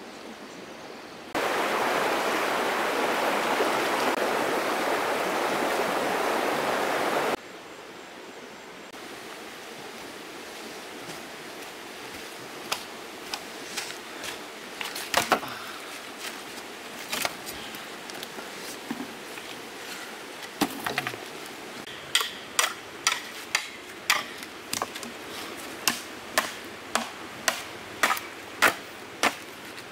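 Machete chopping into a standing green bamboo stalk with sharp, regular knocks, about two strokes a second, through the last third. Before that come scattered single knocks and the steady flow of a shallow stream. A loud, even rushing noise begins about a second in and cuts off abruptly some six seconds later.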